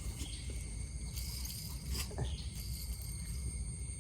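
Insects chirring steadily in several high, unbroken tones over a low rumble, with a few faint knocks.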